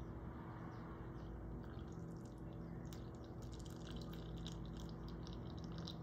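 A thin stream of clear liquid poured from a glass jug onto strawberries in a cake tin, trickling and splashing, with a fizzy crackle of bubbles that grows from about two seconds in.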